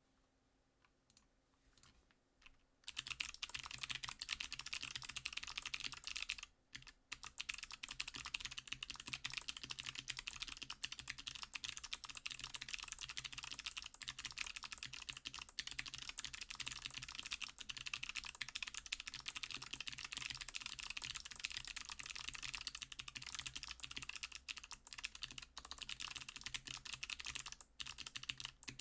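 Fast typing on a mechanical keyboard with clicky Kailh Box Jade switches, an acrylic-cased Majbritt with an FR4 plate and GMK keycaps: a dense, steady stream of sharp clicks. It begins about three seconds in after a few faint taps, breaks off briefly about a quarter of the way through, and pauses again shortly before the end.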